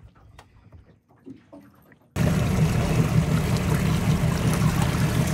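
A few faint small clicks, then about two seconds in a loud, steady rush of water with a deep rumble underneath cuts in suddenly.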